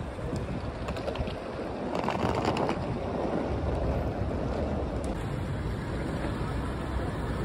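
Outdoor street ambience: wind noise on the microphone over the steady sound of road traffic, with a few light clicks in the first seconds.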